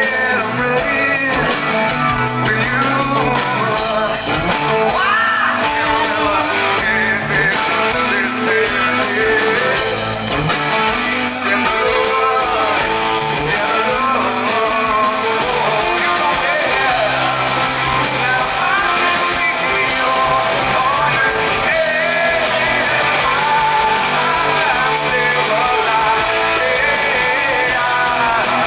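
Rock band playing live: a male lead singer singing over electric guitars and bass guitar, heard through the PA from the audience.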